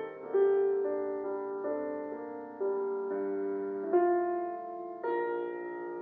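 Slow, gentle background piano music, with a new chord struck about every second and left to ring and fade.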